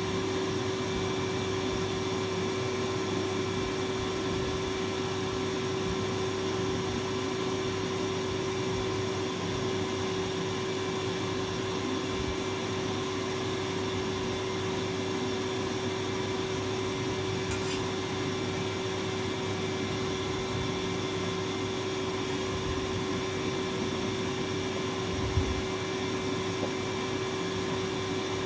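Steady hum of a running motor with one constant tone, like a room fan or appliance; a faint click about two-thirds of the way in and a short low thump near the end.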